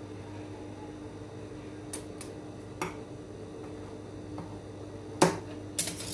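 Several short, sharp clicks and taps of small hard objects handled on a sewing-machine table, the loudest about five seconds in, over a steady hum.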